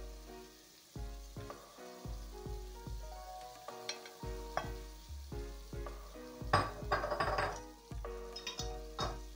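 Background music of plucked notes over a bass line, a new note about every half second, over a faint sizzle of vegetables sautéing in the pot. A short burst of noise comes about six and a half seconds in.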